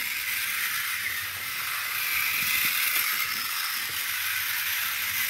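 Battery-powered toy tank's small electric motor and plastic gearbox whirring steadily as it drives along the floor.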